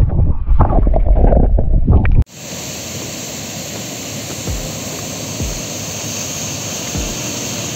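Water churning and sloshing, heard muffled underwater, loud and low, as a bass is released by hand; it cuts off suddenly about two seconds in to the steady rush of a waterfall pouring into the reservoir, with a few soft low thumps.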